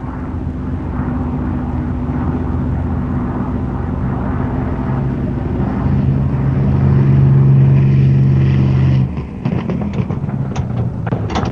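Fairey Barracuda's Rolls-Royce Merlin V12 piston engine droning steadily and growing louder as the aircraft comes in to land on a carrier. Just after nine seconds in, the engine note drops off suddenly, as the throttle is cut at touchdown, and a run of sharp knocks and clanks follows.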